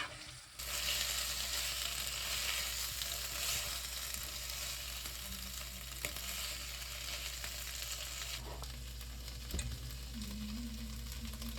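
Food sizzling in a frying pan, starting about half a second in and easing a little near the end, with a few sharp utensil clicks.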